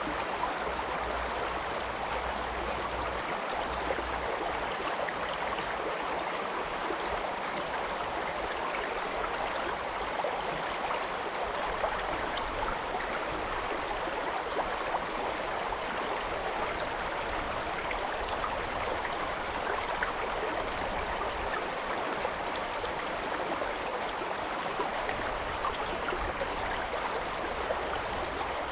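A mountain stream rushing and splashing over rocks: a steady, unbroken water noise.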